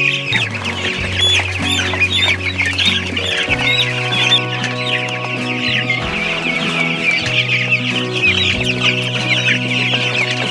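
A large flock of young broiler chicks peeping constantly, many short high peeps overlapping, with background music of low held notes underneath.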